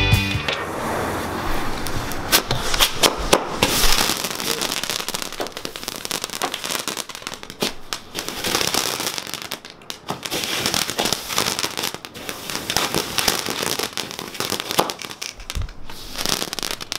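Jet helicopter firework burning at ground level without lifting off. It gives a dense, sputtering crackle full of sharp pops, loudest in the first few seconds, with a couple of brief lulls.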